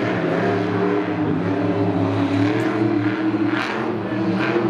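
Monster truck engine running loud and revving, its pitch wavering up and down as the truck drives.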